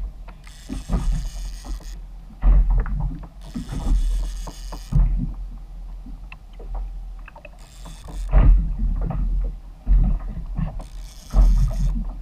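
Wind buffeting a kayak-mounted camera's microphone and water slapping against the hull of a plastic fishing kayak, in irregular heavy gusts with scattered small knocks and short bursts of hiss.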